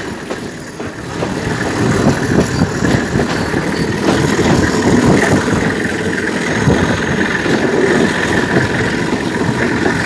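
A moving passenger train heard from an open coach door: a steady rumble of the wheels on the rails with dense clattering and knocking from the running gear.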